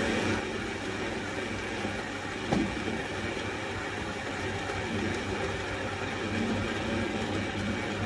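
Fully automatic coffee machine brewing. Its pump runs with a steady low hum as coffee dispenses into the glass, with one brief knock about two and a half seconds in, and it stops abruptly at the end.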